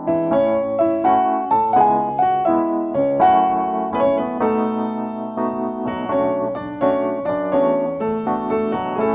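Piano music: a melody of struck notes, a few to the second, over held lower chords.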